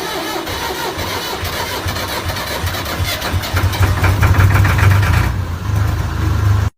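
Electric fan running with a loud low rumble and a rapid clatter, growing louder about three seconds in; the sound stops abruptly near the end.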